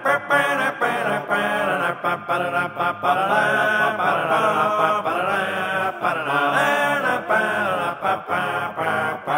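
Background music: a song with a sung vocal line over a sustained accompaniment.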